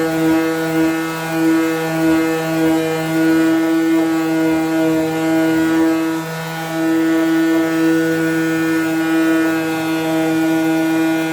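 Electric power sander running steadily at constant speed while sanding a wooden chest of drawers, with a brief dip in its sound about six seconds in.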